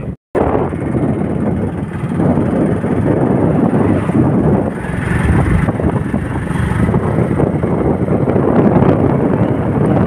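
Wind rushing over the microphone of a moving motorbike, a steady low rumble with the vehicle's running noise mixed in. The sound drops out for a split second just after the start.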